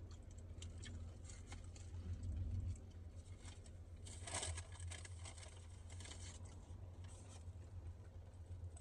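Small crackles, rustles and tearing of crunchy fried chicken and its paper packaging being handled and eaten, loudest about four seconds in, over a steady low hum.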